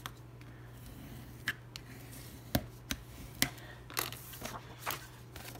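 Bone folder creasing the scored fold of a cardstock card base: a handful of light taps and short scrapes of tool and paper on the cutting mat, over a faint steady hum.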